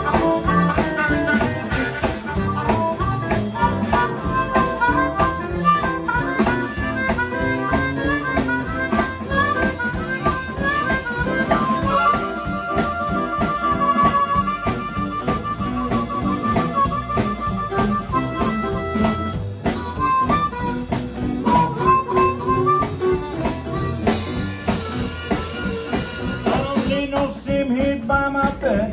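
Blues harmonica solo, blown into a vocal microphone, over a live band of electric guitars, upright bass and drums. About twelve seconds in the harmonica holds one long high note for several seconds before going back to shorter phrases.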